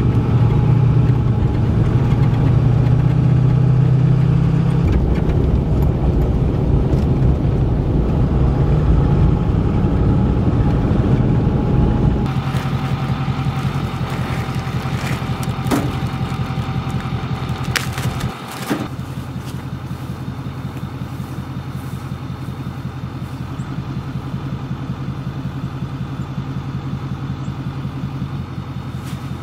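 Pickup truck driving on a gravel road, heard from inside the cab: a loud, steady engine and road rumble. About twelve seconds in it changes abruptly to a quieter, even engine hum, as of the truck idling, with a couple of sharp knocks.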